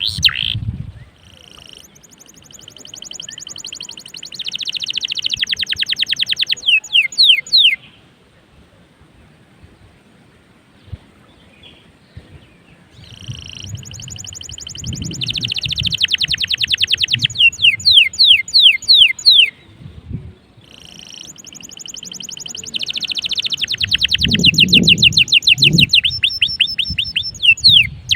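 Domestic canary singing three long song phrases with short pauses between, each built of very fast rattling trills and ending in a run of quick downward-sweeping notes.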